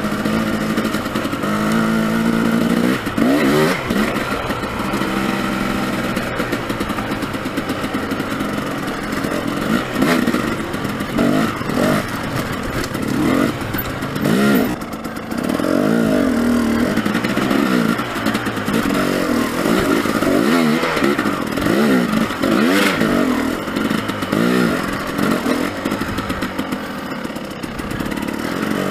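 Dirt bike engine, heard from on the bike, revving up and down again and again as the throttle is worked over rocks and through shallow water, with a few sharp knocks.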